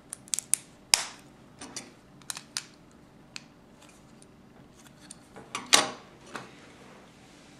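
Plastic Lego bricks clicking as pieces are handled and pressed together: a run of about a dozen sharp, separate clicks, the loudest about a second in and just before six seconds.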